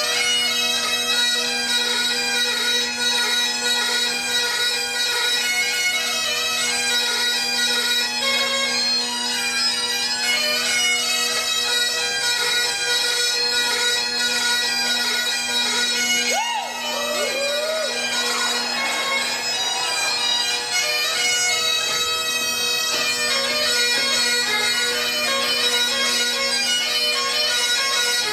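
Great Highland bagpipes playing a tune over their steady drone, with a short break about sixteen seconds in where the pitch wavers before the playing carries on.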